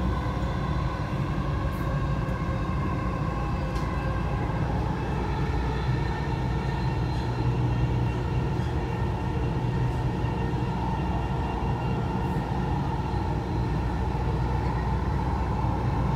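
Dubai Metro train running at speed, heard from inside the carriage: a steady low rumble with a steady higher whine over it.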